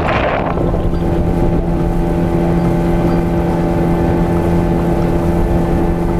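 Motorboat engine running at a steady pitch. A rush of wind on the microphone fades out in the first half second, leaving the engine's even drone.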